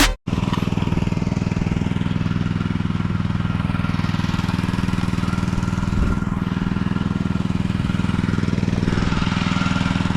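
A machine engine running steadily at an even speed, with a fast regular pulsing. It follows a short tail of music that is cut off right at the start.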